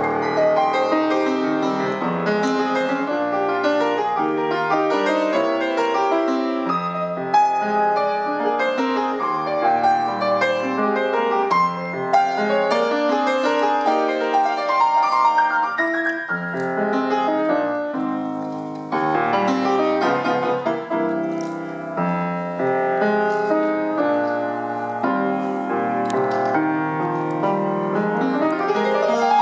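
Solo grand piano playing an Argentine folk piece (a gato or zamba arranged for piano): a busy passage of chords and melody over a bass line. It ends in a fast upward run.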